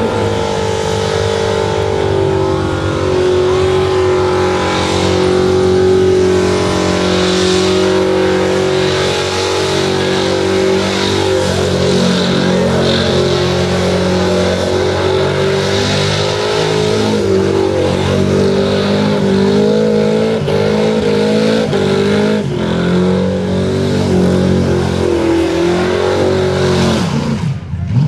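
Holden VS Commodore V8 held at high revs through a burnout, the engine note wavering up and down as the spinning rear tyres screech. The sound cuts off just before the end.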